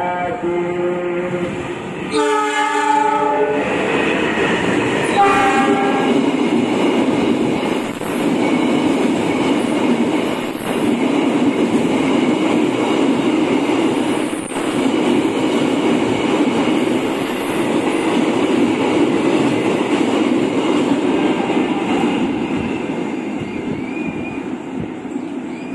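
KAI CC206 diesel-electric locomotive sounding its horn in blasts over the first six seconds, the longest about two seconds in, then a long train of Pertamina fuel tank wagons rolling past at speed with a steady rumble and wheel clatter over the rail joints.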